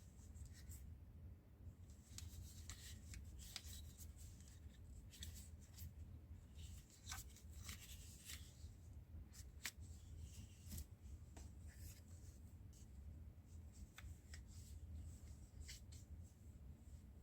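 Faint handling sounds: scattered light clicks and short rustles of a gimbal and its accessories being handled, over a low steady room hum.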